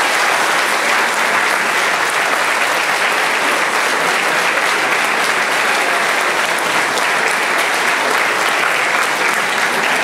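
Large audience clapping in a steady, sustained round of applause.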